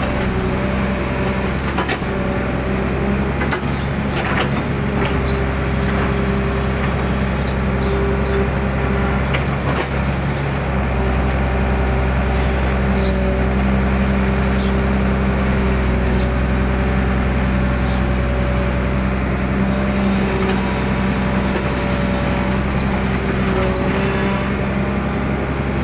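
Hydraulic excavator's diesel engine running steadily under load as the bucket digs wet sand and mud out of a drainage ditch and dumps it, with a few short knocks from the bucket and boom.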